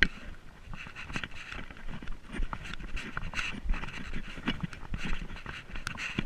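A hiker breathing hard while walking, the breaths swelling and fading over and over, with footsteps on the path heard as irregular clicks.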